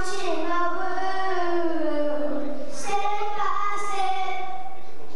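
A young boy singing into a handheld microphone, holding long notes that bend gently in pitch.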